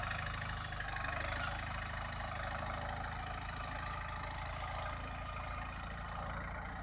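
Captain 250DI mini tractor's diesel engine running steadily under load as it pulls two loaded sugarcane trailers, slowly growing fainter.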